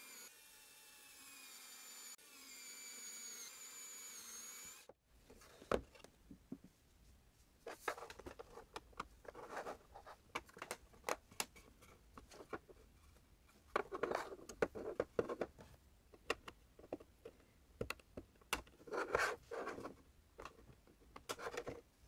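Small plastic parts being handled and fitted together: an OLED display module and the parts of a 3D-printed case give many light clicks and taps with short spells of rubbing. For the first five seconds there is a faint wavering whistle, which cuts off suddenly.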